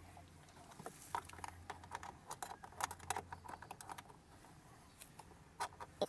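Faint scattered clicks and rustles of a car vacuum cleaner's DC power plug and cord being handled and pushed into the car's power socket, with one sharper click just before the end.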